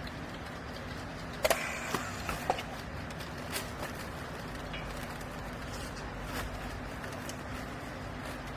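Double chamber cloth baler's hydraulic power unit humming steadily, with a cluster of sharp knocks about one and a half to two and a half seconds in and a few faint ticks later.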